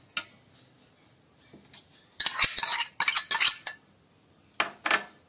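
Metal clinking and clattering against a stainless steel bowl as curd is emptied into it. A sharp click comes first, then two short clusters of clatter with a ringing metallic note in the middle, and two more clicks near the end.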